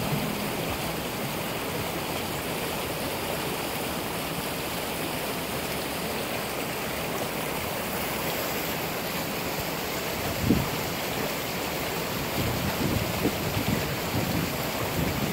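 Rain-swollen creek rushing over shallow riffles, a steady rush of water. A single low bump about ten seconds in, and a few more low bumps near the end.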